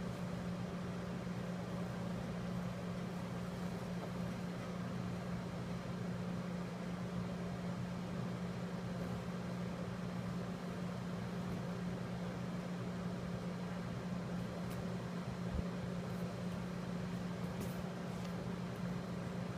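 Steady low mechanical hum, like a small motor or fan running, unchanging throughout, with a few faint ticks in the last few seconds.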